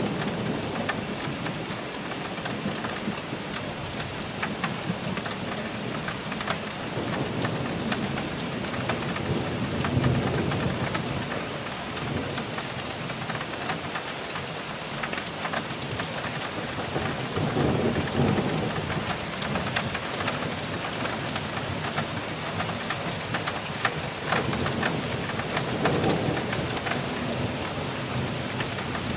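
Thunderstorm: rain falling steadily with close drops ticking, while thunder rumbles low three times, about a third of the way in, a little past halfway and near the end.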